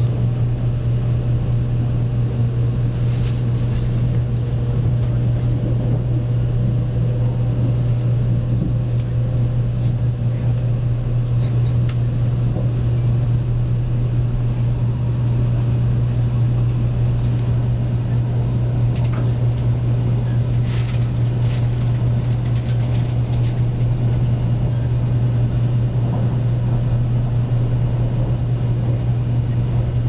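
Steady running noise inside a 0 Series Shinkansen car as it pulls away from the station: a strong low hum over a rushing background, with a few faint clicks.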